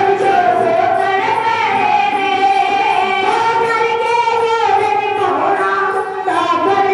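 Sikh devotional singing: voices holding a slow, gliding melody with long sustained notes.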